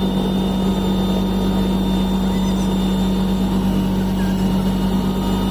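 Helicopter in flight, heard from inside the cabin: a steady low drone of engine and rotors with faint high whining tones above it.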